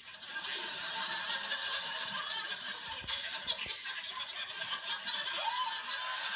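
Studio audience laughing, holding at a steady level for the whole stretch.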